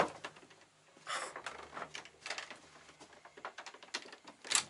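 Irregular light knocks and clicks of someone moving about a wooden cabin and handling things, with a short breathy hiss about a second in and a louder one near the end.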